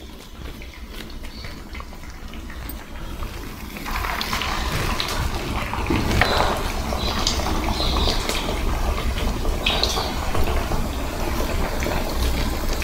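Atukula garelu (flattened-rice vadas) deep-frying in hot oil in a kadai, a steady sizzle and bubbling with scattered crackles. About four seconds in the sizzle turns louder and busier as another portion of batter goes into the oil and foams up.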